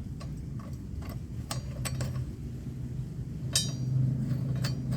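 Metal tools and mower parts clinking and tapping as they are handled while a new lawnmower blade is fitted: a handful of separate sharp clicks, one about three and a half seconds in ringing briefly, over a low steady hum that grows louder near the end.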